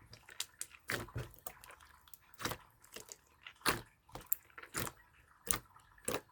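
Clear slime being pressed and squished by hand, giving irregular sharp clicks and pops, about one or two a second.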